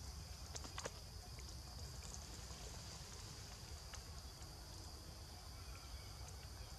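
Steady high-pitched insect buzz over a low wind rumble, with a few faint clicks about a second in and again around four seconds.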